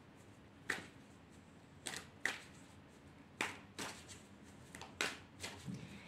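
Tarot deck being shuffled in the hands: about eight short, irregular card slaps and flicks over six seconds.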